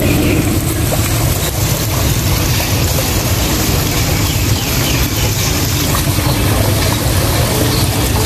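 Steady rush of water running into a koi pond from a small artificial stream, over a constant low hum of road traffic.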